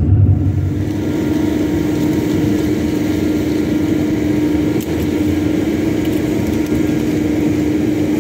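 Hydrofoil engines running. A deep rumble gives way about a second in to a steady idling hum with one constant droning tone.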